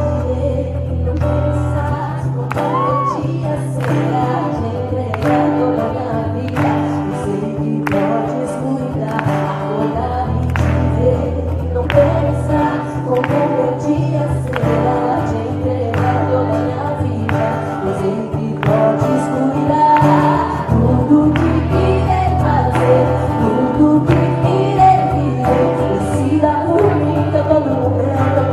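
Christian worship music: singing over sustained bass and a steady beat of about one hit a second.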